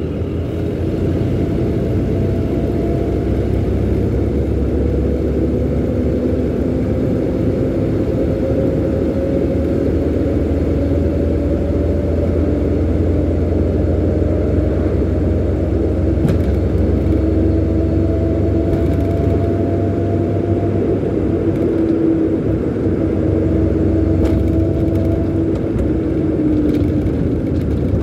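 Car engine and road rumble heard from inside the cabin while driving, the engine note slowly rising in pitch as it speeds up and dropping back a few times.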